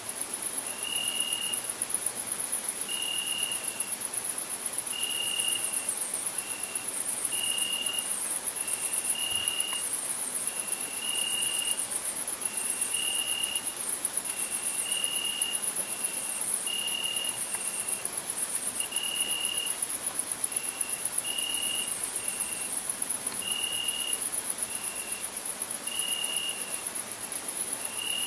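Crickets singing: a continuous, very high trill, with a lower, clearer chirp repeating about every one to two seconds.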